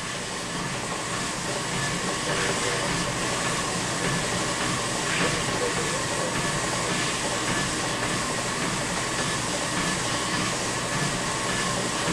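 Treadmill running with a man walking on it: a steady whirring of the motor and belt with faint footfalls, growing louder over the first couple of seconds.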